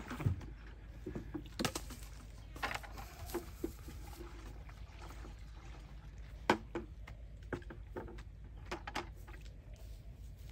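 Herbicide mix being stirred with a wooden stick in plastic buckets: liquid sloshing and pouring, with scattered knocks of the stick and buckets and one sharper knock just past the middle.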